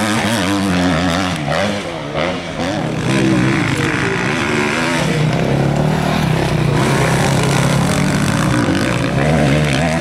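Motocross bike engines revving hard on a dirt track, their pitch rising and falling as the riders throttle on and off, with a short dip about two seconds in.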